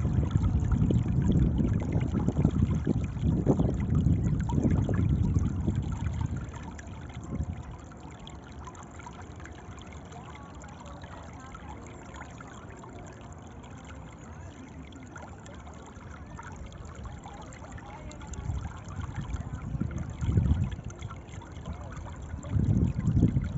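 Running water rushing and splashing, louder with a deep rumble for the first six seconds and again near the end, softer in between.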